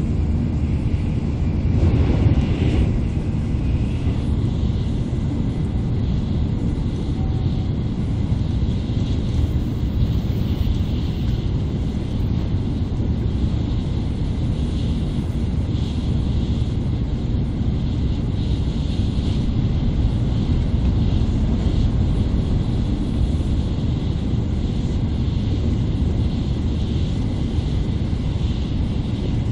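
Cabin running noise of an N700A Tokaido Shinkansen car at speed: a steady low rumble with a hiss above it, and a brief louder surge about two seconds in.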